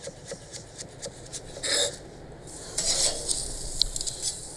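Chef's knife chopping vegetables on a wooden cutting board: quick, even strokes about three a second, then louder scraping and rustling from about two seconds in.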